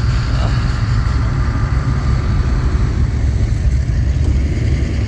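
Engines of a queue of rally cars idling and creeping forward: a steady low rumble. Some fainter higher-pitched tones fade out about three seconds in.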